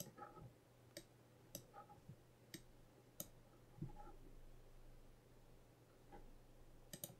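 Faint computer mouse clicks, about half a dozen at irregular spacing, two close together near the end, over a faint steady low hum.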